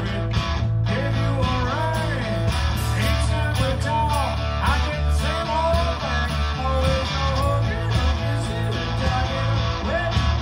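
Live rock band playing: electric guitar over bass and drums, with a lead line of notes bending up and down, picked up on a phone's microphone.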